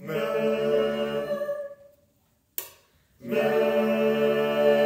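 A choir singing a cappella on one held chord, the final 'Amen' chord being rehearsed. It stops after nearly two seconds and comes in again on the sustained chord about three seconds in, with a short click in the pause.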